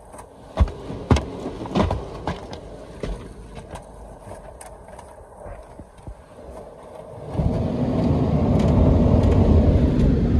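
Car wash equipment heard from inside a car's cabin: cloth mitter strips sliding over the foamed windshield and roof, with a few soft thumps in the first couple of seconds. About seven seconds in, a spinning cloth side brush reaches the car and scrubs against the door and window, a sudden, much louder steady brushing of wet cloth.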